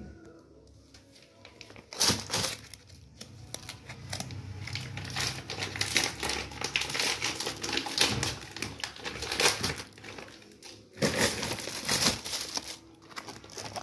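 Clear plastic bags crinkling and rustling as sun-dried croaker fish are handled inside them. It is quiet for the first couple of seconds, then the crackling runs almost without a break, with a short pause about eleven seconds in.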